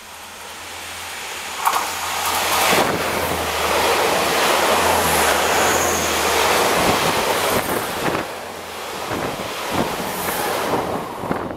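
A DR2800 diesel multiple unit passes close by on the adjacent track. The sound swells as it comes in, with a short sharp clack about two seconds in, then becomes a loud rush of wheels on rail and moving air. A low drone from its diesel engines underlies the rush for a few seconds, and the noise turns more uneven as the rest of the cars go by.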